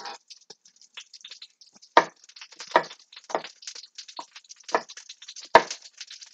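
Chef's knife mincing garlic on a wooden cutting board: irregular knocks of the blade striking the board, two of them louder, about two seconds and five and a half seconds in.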